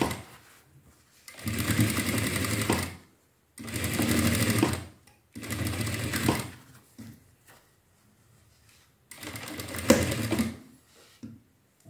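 Sewing machine stitching in four short runs of about one to one and a half seconds each. It stops between runs while the fabric is turned to carry the seam around the piece.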